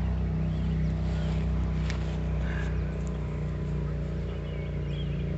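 A steady low mechanical hum, like a motor running, with a sharp click about two seconds in and birds chirping in the second half.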